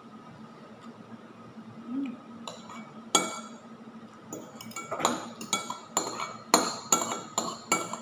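A metal spoon clinking against a serving bowl as food is scooped out: about a dozen sharp, irregular clinks that begin a few seconds in and cluster in the second half, over a steady low hum.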